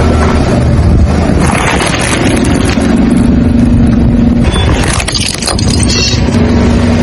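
Car engine running with a steady drone as the car rolls slowly on wet asphalt, its tyres crunching and crushing small objects.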